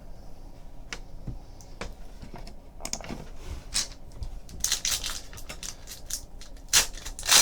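Trading card pack wrappers crinkling and tearing open as cards are handled: scattered small clicks and brief rustles, louder about three seconds in and again near the end.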